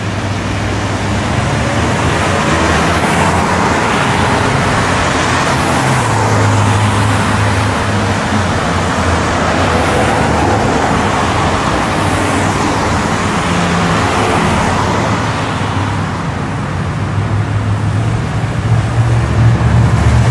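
Steady road traffic noise: vehicles passing with a rising and falling rush of tyres over a low engine hum.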